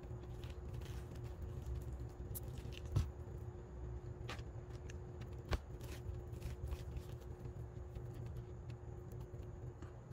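Metal spoon scraping seeds and stringy pulp out of a halved acorn squash, with small scratchy clicks and two sharper knocks, about three and five and a half seconds in. A low steady background rumble runs underneath.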